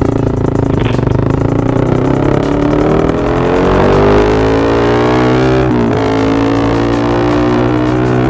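Small motor scooter engine accelerating, its note rising steadily over a few seconds, dipping briefly as the throttle eases just before six seconds in, then climbing again and holding at cruising speed.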